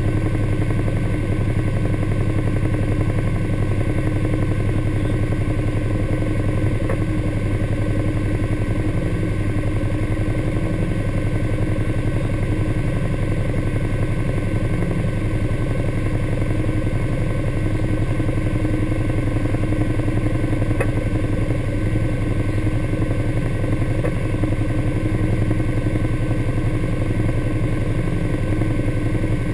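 Off-road vehicle engine idling steadily: an even low hum with no revving.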